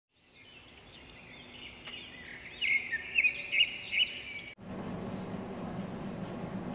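Birds chirping and twittering in short gliding whistles, fading in and rising to several loud chirps. About four and a half seconds in it cuts off abruptly and gives way to a steady outdoor background hum.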